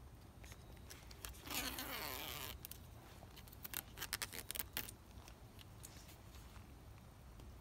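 Red plastic liner being peeled off 3M double-sided adhesive tape: a scratchy peel lasting about a second, then a run of short crackles a couple of seconds later.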